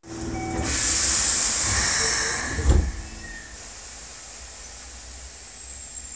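Loud hiss of compressed air from a Keikyu 600 series electric train's pneumatic equipment, lasting about two seconds and ending with a low thud, as the train stands at the platform before departure.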